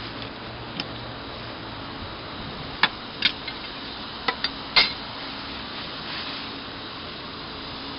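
Metal hand tools clinking and clanking against each other in a toolbox: about six sharp clinks, bunched from about three to five seconds in, over a steady background hum.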